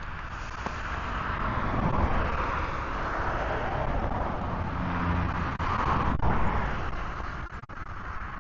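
A road vehicle passing by: steady tyre and engine noise that builds over the first couple of seconds and fades near the end.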